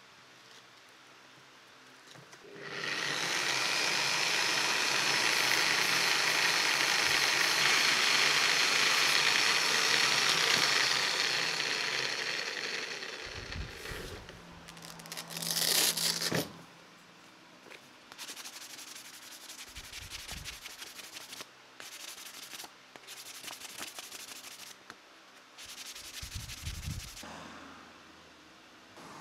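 Electric rotary polisher fitted with a P400 sanding disc, starting up about three seconds in and sanding an olive wood spoon with a steady hiss, then winding down. A short loud rasp comes about 16 s in, followed by broken scraping and handling noises.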